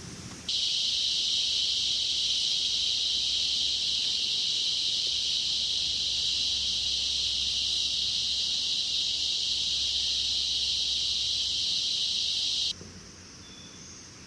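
Loud, steady, high-pitched insect buzzing from the forest. It starts abruptly about half a second in and cuts off abruptly near the end.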